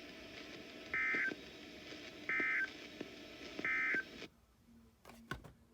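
Emergency Alert System end-of-message signal: three short, identical bursts of SAME digital data tones, evenly spaced, marking the end of the broadcast warning. The audio then drops to near silence with a faint click or two.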